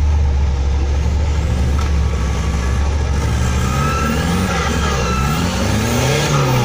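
Off-road 4x4's engine revving in a mud hole, its pitch rising and falling several times over a steady low rumble.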